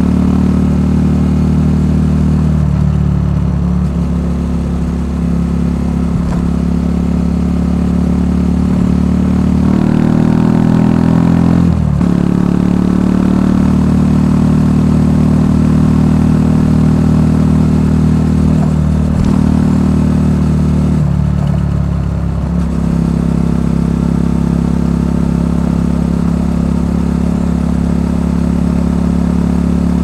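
Benelli TNT 125's single-cylinder four-stroke engine running through its stock exhaust under way, a steady note with brief throttle lifts around three seconds in and again past twenty seconds. About ten seconds in the pitch rises as it accelerates, then drops sharply.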